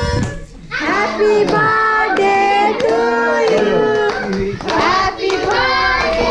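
Singing with hands clapping along, in held, pitched notes. The sound drops briefly near the start, then comes back loud.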